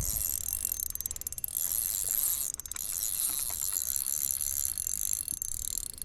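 Fishing reel being cranked to bring in a hooked bass, a steady mechanical ticking whir of the reel's gears, with a low bump right at the start.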